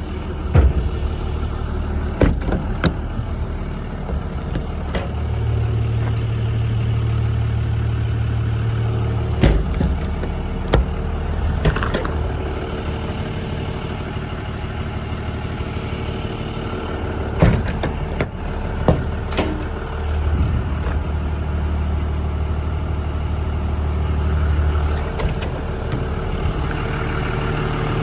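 Diesel truck engine idling steadily, with scattered sharp clicks and knocks of the service body's metal drawers and compartment doors being opened, slid and latched.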